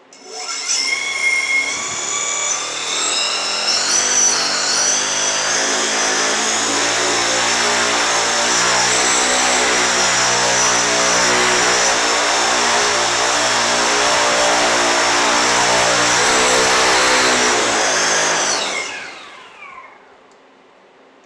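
Brushless motor and propeller on a thrust stand spinning up about half a second in and running hard with a steady high tone, its pitch shifting as the throttle follows a replayed drone flight's throttle sequence. Around 19 seconds in it winds down, the pitch falling as the propeller slows to a stop.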